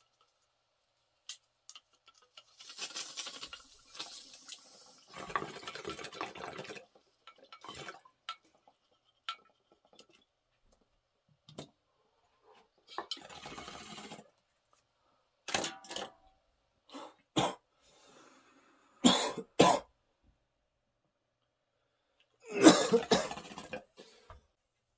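Water bubbling in glass bongs during two long hits, with a few small clicks, then a run of short, sharp coughs in the second half, the loudest near the end.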